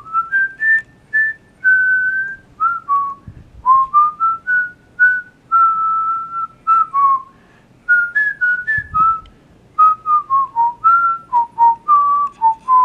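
A person whistling a simple tune, one clear note after another, stepping up and down with small slides between some notes, and short clicks between the notes.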